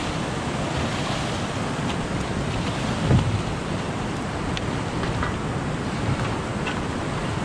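Fast-flowing creek water rushing steadily, with a single low thump about three seconds in.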